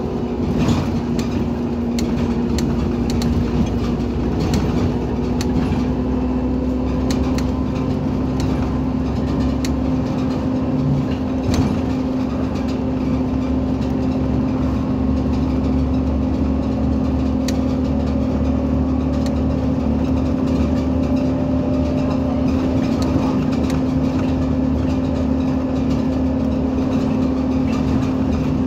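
Irisbus Citelis 18 articulated bus's Iveco Cursor 8 natural-gas engine idling steadily with a constant hum, and a few faint ticks scattered through it.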